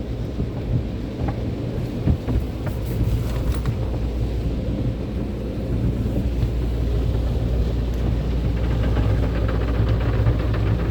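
Automatic car wash's rotating cloth brushes scrubbing over the car, heard from inside the cabin: a steady low rumble with water noise, and a denser patter starting about eight seconds in.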